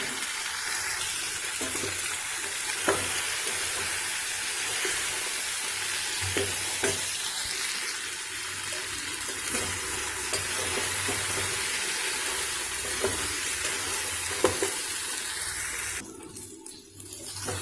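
Brinjal pieces sautéing in hot oil with shallots and tomato in a stainless steel kadai: a steady sizzle, with a few sharp clicks and scrapes from a steel slotted spatula stirring against the pan. The sizzle drops away briefly near the end.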